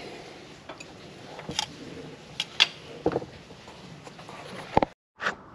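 A few sharp metal clicks and knocks from a hand-turned counterbore cutting tool being worked on a Caterpillar 3406E diesel block, two of them close together about halfway through and the loudest near the end.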